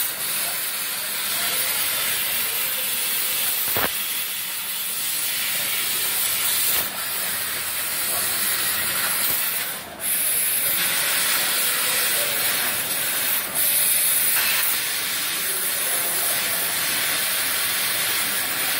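MultiPro LCM 2500 laser cutting machine cutting sheet steel: a steady, loud hiss of assist gas jetting from the cutting nozzle. It drops out briefly a few times, most deeply about ten seconds in, as the head moves between cuts.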